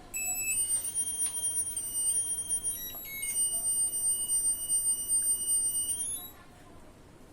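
Electronic power-on tones from the JJRC X12 drone kit as it switches on to pair with its controller: a few short high beeps stepping between pitches, then one steady high tone held for about three seconds, stopping about six seconds in.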